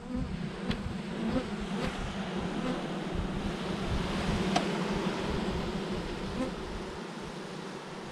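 Honeybees buzzing steadily over the frames of an open hive, a low even hum, with a few small clicks of the hive being handled, the sharpest about halfway through.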